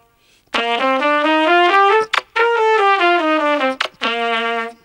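Trumpet playing the seven-note 'trumpet kiss' pattern: three quick runs of stepping notes that move up and down in pitch, with short breaks between them, beginning about half a second in.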